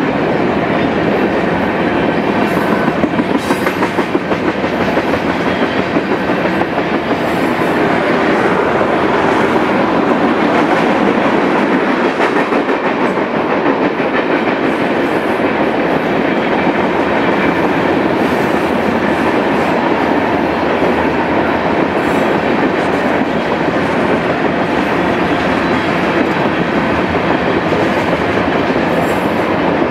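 Freight cars of a passing mixed freight train (tank cars and covered hoppers) rolling by: a steady noise of steel wheels on rail, with scattered clicks.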